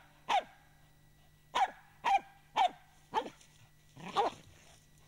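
Finnish Spitz barking at a raccoon dog it is holding at bay: about six short, sharp barks with uneven gaps between them. This steady bay barking signals to the hunter where the quarry is held.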